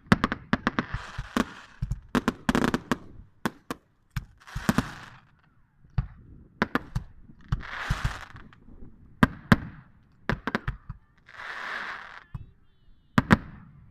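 Fireworks display: many sharp bangs in quick, irregular succession, with short hissing bursts about every three to four seconds.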